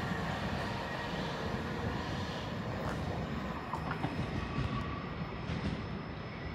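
Class 458 electric multiple unit pulling away from the station, its low rumble slowly fading as it recedes, with a faint whine and a few light clicks.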